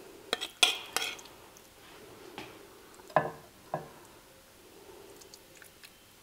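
A metal spoon clinking and scraping against a ceramic bowl and plate while a tuna mixture is spooned out. Three quick clinks come in the first second, then a few more spaced taps.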